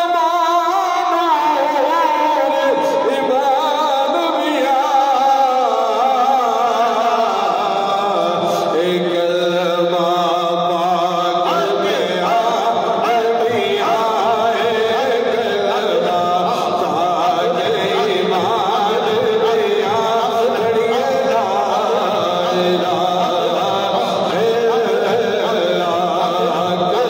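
A group of men's voices chanting dhikr together in a slow, continuous melodic line.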